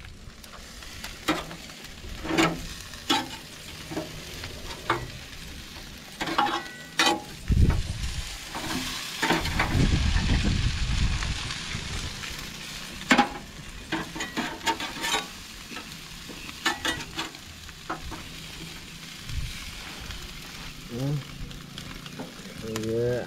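Jerk chicken sizzling over charcoal on a drum grill, with a metal spatula clicking and scraping against the mesh grate as the pieces are turned. The sizzling swells louder for a few seconds near the middle.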